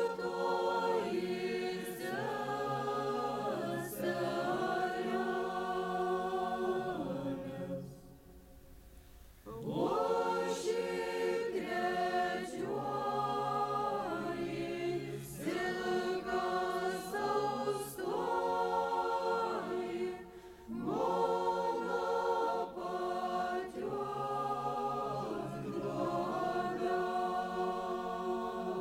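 A folk ensemble's choir singing a Lithuanian folk song in several voices, in long phrases with short pauses about eight and twenty seconds in.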